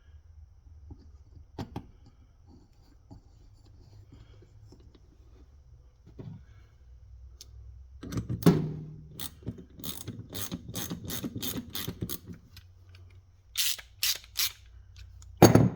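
Ratchet wrench clicking in a quick run of about four clicks a second, then three more clicks and a loud sharp knock near the end, as a part is tightened down.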